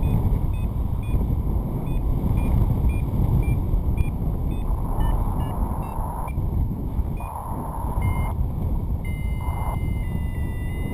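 Wind rushing over the microphone in flight, with a paragliding variometer beeping about three times a second, the sound of climbing in lift. Past the middle the beeps change pitch, and near the end they turn into a steady lower tone that drops in steps, the vario's sink tone.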